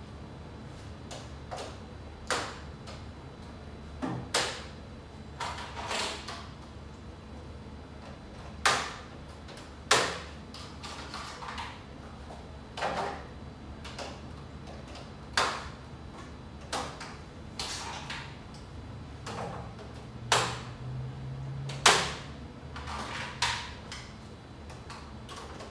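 Plastic clicks and knocks of LED grow-light bars and their clips being handled and fitted onto a PVC pipe frame, a dozen or more sharp hits at irregular intervals, over a low steady hum.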